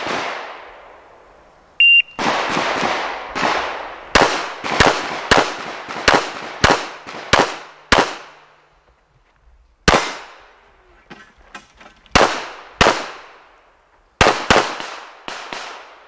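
An electronic shot-timer beep about two seconds in, then a fast string of 9mm pistol shots from a Smith & Wesson M&P9 Pro, mostly fired in quick pairs with short pauses between target arrays, each shot ringing out briefly.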